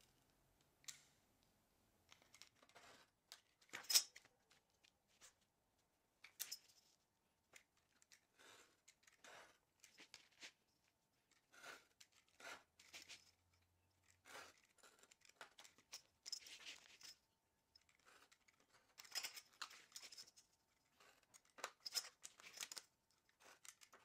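Scrap rubber sheet being cut and trimmed into a gasket: faint, scattered short cutting sounds with pauses between them, the loudest about four seconds in.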